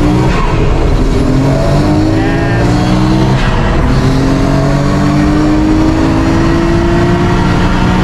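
Nissan R32 Skyline GT-R's twin-turbo straight-six, built up with hybrid turbos, pulling hard under acceleration. Its note climbs in pitch and drops back twice, about two and a half and four seconds in, as it shifts up through the gears.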